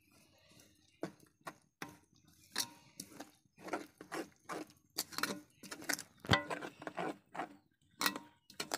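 Metal spoon scraping and knocking against a metal pan while stirring rice flour into sugar syrup, in irregular strokes several a second starting about a second in, some strokes making the pan ring briefly.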